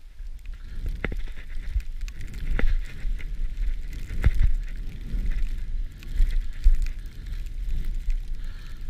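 Skis running through deep powder snow with a steady low wind rumble on the camera's microphone and a hiss of snow, broken by a few sharp knocks.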